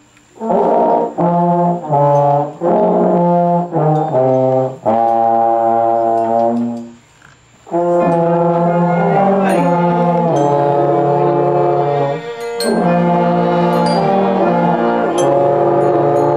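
A small brass ensemble of trombones and tubas playing a tune together in held chords, with a brief rest about seven seconds in.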